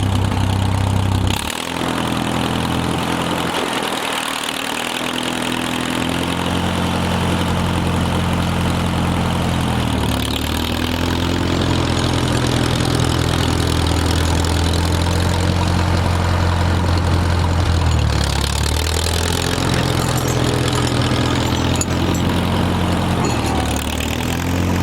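Farmall M tractor's four-cylinder engine running, its engine speed shifting up and down several times.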